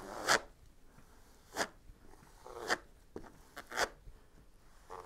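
Plastic squeegee scraping and smearing thick filled epoxy, mixed to a peanut-butter consistency, across a glass-fabric-sheathed wooden panel in several short separate strokes.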